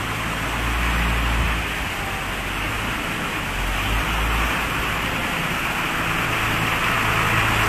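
Flash floodwater from heavy rain rushing down a walled concrete channel: a steady, loud rush of churning water with a low rumble underneath.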